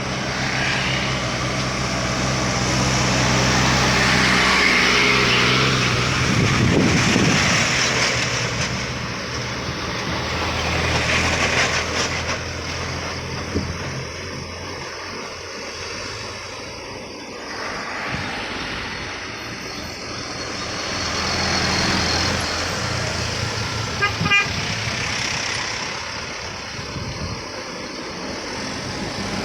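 Road traffic going by: trucks and cars pass one after another, each engine and tyre noise swelling and fading. A short horn toot sounds late on.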